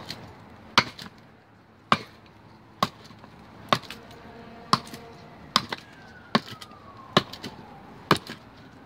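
Benchmade Bushcrafter's S30V stainless steel blade chopping into wood, about nine sharp chops at roughly one a second. A distant siren wails faintly in the background in the second half.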